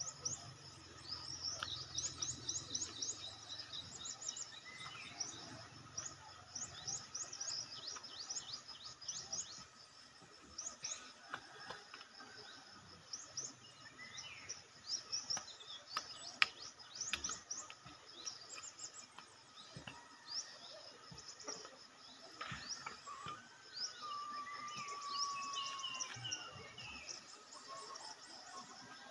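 Birds calling in the garden, several singing quick series of high, falling chirps, with one longer gliding whistle near the end. A steady high insect hum runs underneath. A few sharp knocks come through along the way.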